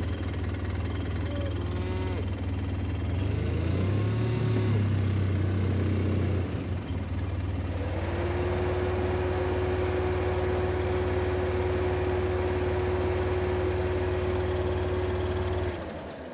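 A motor vehicle engine running steadily, rising and falling in pitch briefly about four seconds in, with a steady whine joining about halfway; the engine sound stops near the end.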